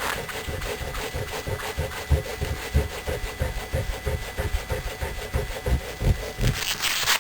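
A rubber eraser scrubbed back and forth against the plastic case of an Apple II, a rhythmic scratchy rubbing with a low thump at each stroke, about two strokes a second, getting brighter and scratchier near the end. It is rubbing the yellowing off the case.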